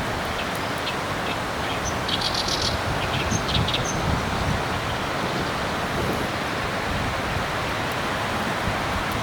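Steady rushing outdoor noise, with a small bird chirping a few quick times about two to four seconds in.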